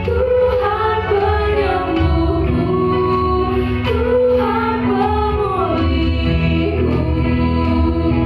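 Christian worship song: a lead singer with band accompaniment, a gliding vocal melody over sustained chords and a steady bass.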